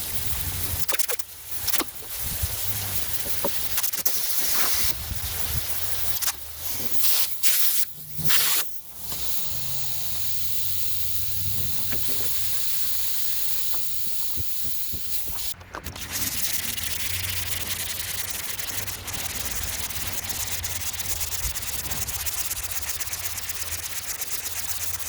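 Sandpaper on a sanding block rubbing over a car hood primed with SlickSand primer. The strokes come in broken spells with short gaps for the first several seconds, then settle into steady rubbing.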